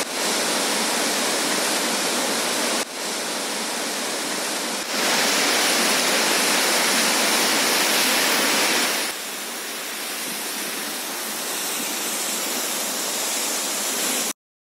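Floodwater discharged from the Three Gorges Dam's spillway outlets, rushing as a steady, dense spray and crashing into the river below. The level jumps abruptly three times as the shots change, and the sound cuts off suddenly near the end.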